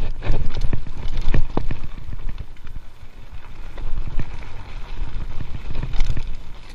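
Giant Stance mountain bike rolling fast down a dirt singletrack: tyres on the dirt with the bike rattling and knocking over bumps, the knocks heaviest in the first second and a half and again near the end, over a low rumble of wind on the microphone.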